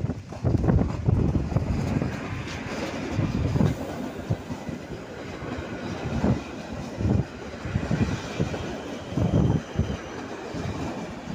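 Passenger train running through the station, its wheels clattering and knocking irregularly over the rail joints.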